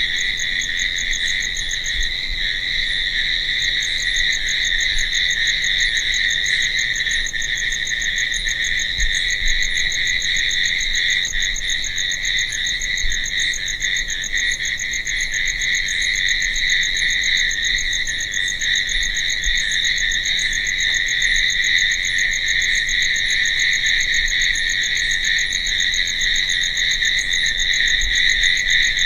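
Crickets chirping in a steady night chorus: a continuous high trill, with a faster pulsing chirp higher up that stops for about two seconds near the start and then comes back.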